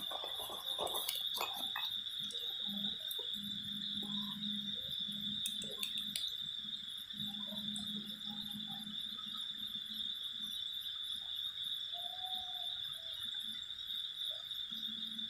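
Night insects chirring in a steady, high, unbroken drone, with a faint low hum that comes and goes and a few light clicks in the first couple of seconds.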